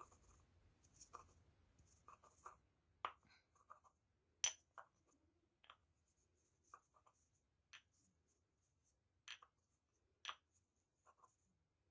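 Faint, scattered clicks and taps of small objects being handled, about a dozen spread irregularly, the sharpest about four and a half seconds in.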